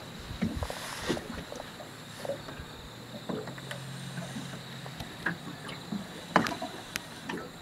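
Water lapping at a small boat's hull, with scattered light knocks and clicks as an angler plays a hard-fighting bass on a spinning rod.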